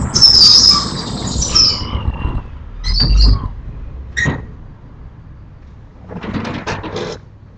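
A sliding window scraping along its track with a high squeak as it is slid shut, then a knock and a sharp click. Near the end comes a low rumbling.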